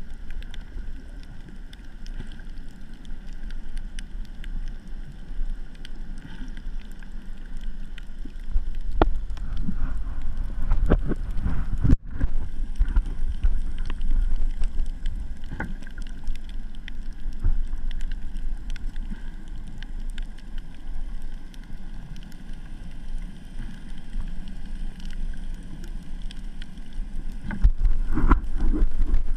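Muffled underwater noise through a GoPro's waterproof housing: a steady low rumble of water moving past the camera, with clusters of knocks and clicks about nine to twelve seconds in and again near the end.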